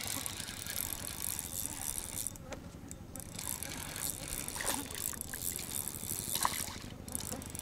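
Spinning reel being cranked to bring a hooked fish in to the bank: a buzzing whir of the reel, stopping briefly twice as the reeling pauses.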